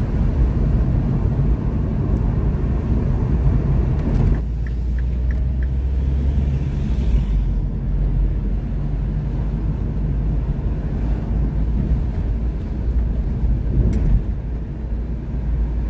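Car driving, heard from inside the cabin: a steady rumble of engine and road noise with air coming through an open window.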